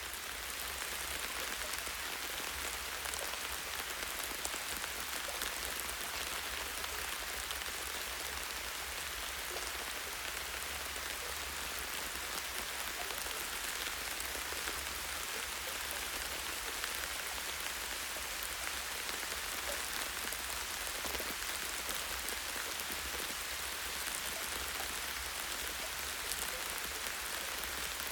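Steady, even rain: a dense hiss of many drops with faint separate drop ticks and a low rumble underneath.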